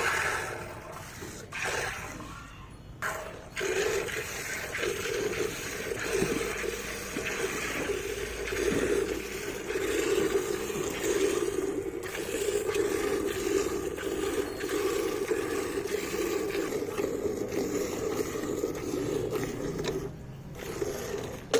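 A steady stream of liquid splashing, starting a few seconds in and cutting off sharply near the end.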